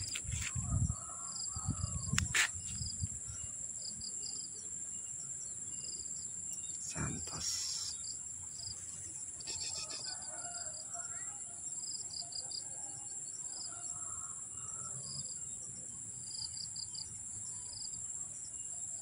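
Outdoor insect chorus: a steady high-pitched drone with rows of short, repeated cricket-like chirps. Faint bird calls come in during the middle, and a few low thumps sound in the first few seconds.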